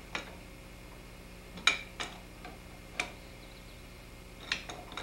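Metal clinks of a wrench turning a nut on a furnace element's lead-wire connector while vise grips hold the bolt head: about six sharp clicks at uneven intervals.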